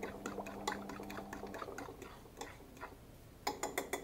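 Fork beating eggs and cream in a bowl: quick rhythmic ticks of the tines against the bowl, about five a second, thinning out halfway through, then a few louder sharp clinks near the end. A low steady hum underneath stops about a second and a half in.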